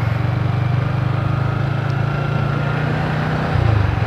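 Motorcycle engine running steadily while riding, heard from on the bike; about three and a half seconds in the engine note shifts and gets louder.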